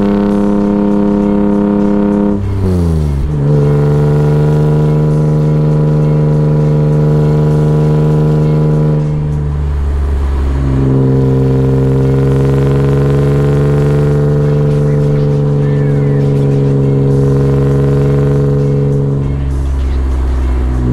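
BMW E36 M3's 3.2-litre straight-six, running Dinan Stage 3 software and a cold air intake, pulling steadily while driven, heard from inside the cabin. The engine note drops to a lower steady pitch twice, about two and a half seconds in and again around ten seconds, as at upshifts of the manual gearbox.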